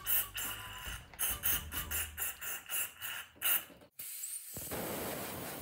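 Aerosol carb cleaner sprayed in a rapid series of short hissing bursts into the crankshaft's gland-nut threads. After a brief break near four seconds, a compressed-air blow gun hisses steadily as it blows the threads out.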